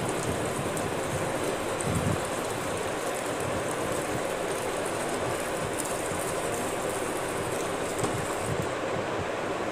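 Butter sizzling steadily in a small pan over a gas flame for a tadka, with ginger and green chillies frying in it; an even sizzle with faint crackles.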